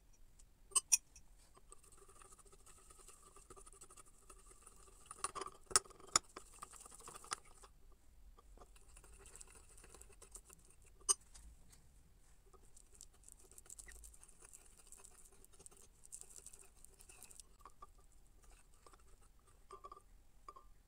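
A spoon whipping instant coffee and sugar into a paste in a porcelain cup, a quick, even scraping patter as the mix is beaten toward a light froth. Now and then there is a sharp click of the spoon against the cup, twice near the start and several times a few seconds later.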